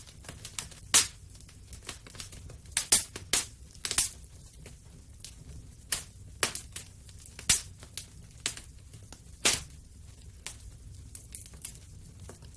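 Wood fire in a fireplace crackling: irregular sharp pops and snaps, a few much louder ones about a second in, around three seconds, halfway through and near ten seconds, over a low steady rumble.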